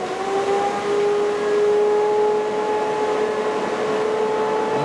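Tornado Tech TF 200H1D fume-extraction fan finishing its spin-up: its motor whine rises in pitch through the first half second, then the fan runs steady with a level whine over a rush of air.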